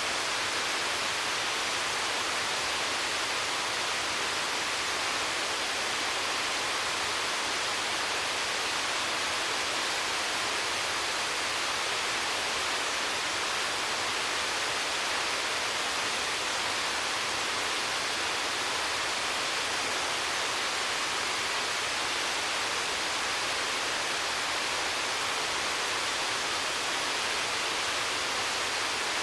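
Amataki waterfall, water falling in a steady, unbroken rush with no other sound standing out.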